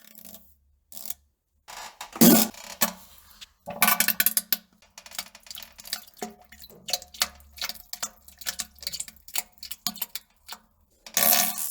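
A person on a toilet: loud bursts of flatulence about two seconds in and again near the end, with many short sharp plops and splashes between them.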